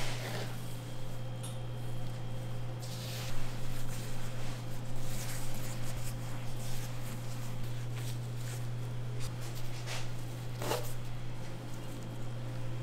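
Gloved hands tearing and pinching off pieces of soft bread dough, with squishy rubbing and a few short tearing sounds, about three seconds in and again near the end. A steady low hum runs underneath.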